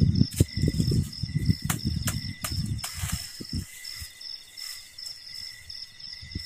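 A steady, high-pitched chorus of forest insects. Over the first three seconds or so it is mixed with rustling, crunching and low bumps from dry leaf litter and twigs being handled and stepped on, with a few sharp snaps; then mostly the insects remain.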